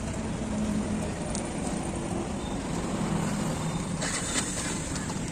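Steady road traffic noise, vehicle engines running past, with a brief hiss about four seconds in.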